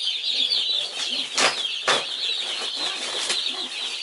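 A brood of day-old chicks peeping continuously, many high chirps overlapping into one steady chorus. Two brief rustling knocks stand out about a second and a half and two seconds in.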